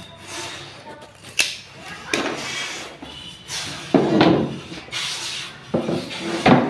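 A few sharp knocks and clunks, with rubbing in between, as the metal hydraulic bed-lift fitting is handled and set against the plywood bed panel.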